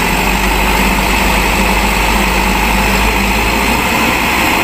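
Mitsubishi Fuso dump truck's diesel engine running steadily while its tipper bed is hydraulically raised.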